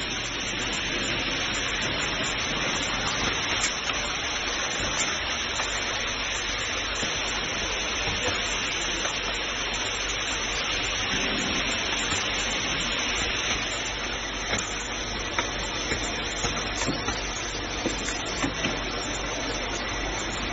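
Pumpkin seeds streaming through a running X-ray foreign-matter sorter: a steady rushing hiss like rain, with scattered sharp ticks in the second half.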